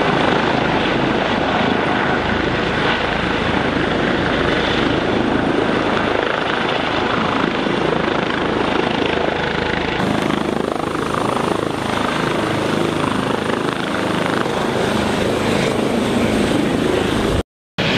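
Loud, steady aircraft engine noise, with a change in its sound about ten seconds in where one clip cuts to another.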